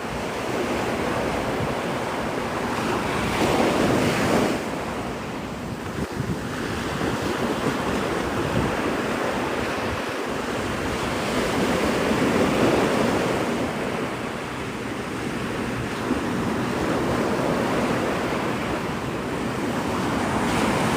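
Gulf surf breaking and washing up the beach, swelling and easing in slow surges, with wind buffeting the microphone.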